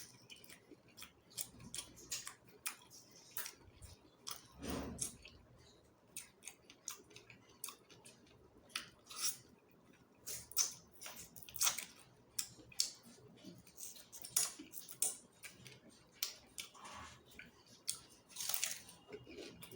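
Close-miked eating of chicken feet curry with rice: wet chewing and mouth smacks, with irregular sharp clicks throughout.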